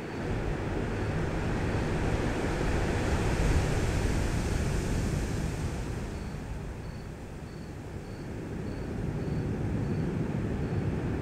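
Ambient sound-design drone: a rumbling, airy noise texture that swells up, eases back past the middle, then rises again, with a faint high beep repeating a little under twice a second.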